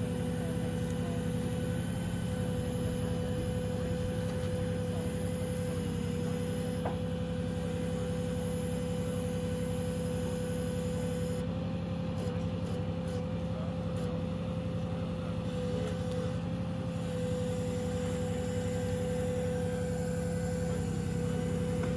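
Truck engine running steadily to power its boom crane, with a steady high hum from the hydraulics over the engine drone, as the crane slowly lowers a concrete burial vault on chains.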